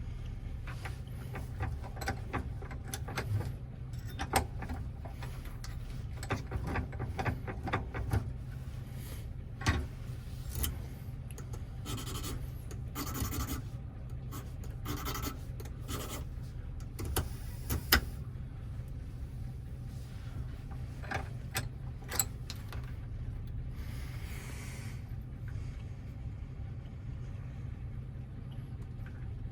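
Short rasping file strokes on a small lock wafer, filed down a little to sit at the right height in a Toyota door lock cylinder. Light clicks and taps of small metal lock parts being handled are scattered through it.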